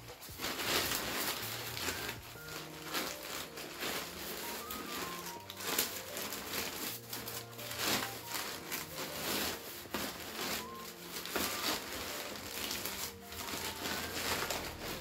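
Lightweight backpack fabric rustling and crinkling in irregular bursts as a stuffed sack is pushed down into a Gossamer Gear Minimalist 19 daypack and the top is gathered. Soft background music of held notes plays underneath.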